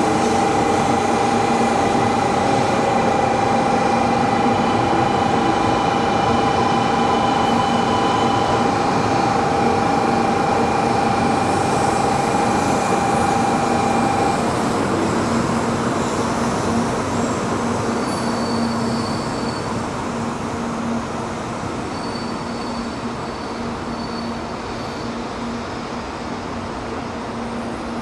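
700-series Rail Star shinkansen running slowly alongside the platform and drawing to a stop. A steady whine cuts off about halfway through, and the running noise dies down over the second half.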